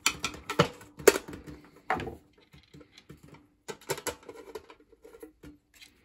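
Irregular sharp clicks and light taps of a screwdriver and small screws against a toaster's metal casing, the loudest few in the first two seconds and lighter ones after.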